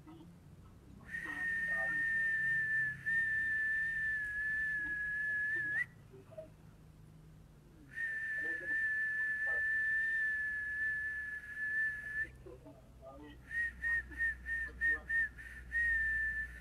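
A person whistling one high note: two long held tones of about five and four seconds, then a run of short quick pips at about three a second, ending in a short held note.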